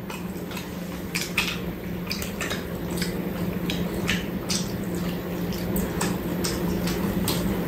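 Close-up eating sounds: chewing and the handling and tearing of soft tortilla burritos, with scattered small clicks and smacks over a steady low hum.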